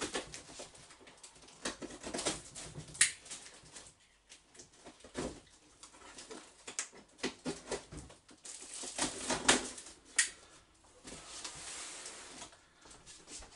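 Stanley knife scraping and slitting through packing tape on a cardboard box, amid rustling and small knocks as the box is handled.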